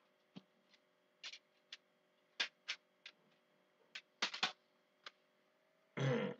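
A series of sharp, irregular clicks and knocks from objects being handled close to the microphone, then a louder, brief rubbing thump near the end. A faint steady hum runs underneath.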